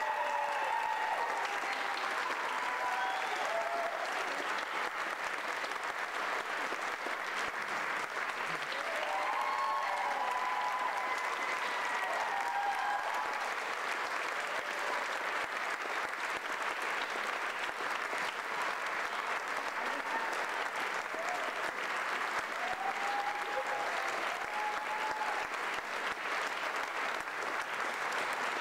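Theatre audience applauding steadily through a curtain call, with voices calling out and cheering now and then over the clapping.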